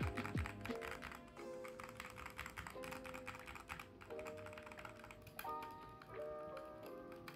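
Rapid typing on a Machenike K500-B61 mini mechanical keyboard, a fast patter of key clicks as a typing-sound test.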